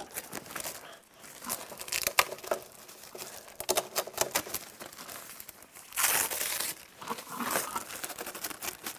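A plastic sheet being peeled off the inside of a car door, crinkling and crackling irregularly as it pulls away, with a louder burst of crinkling about six seconds in.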